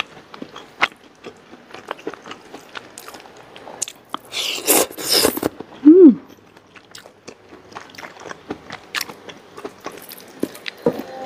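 Close-up eating sounds: chewing with frequent small wet mouth clicks as rice, greens and crisp-fried chicken and tempe are eaten by hand. A louder crunching comes about four and a half seconds in, and a short falling 'mm' from the eater about six seconds in.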